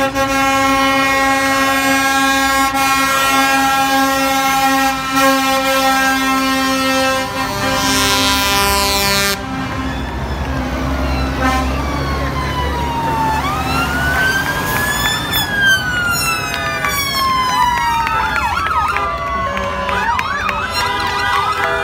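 A long steady horn note held for about nine seconds, then emergency-vehicle sirens wailing, rising and falling in pitch and turning to quicker yelps near the end. Under the start of the sirens, the low rumble of a heavy vehicle's engine passing.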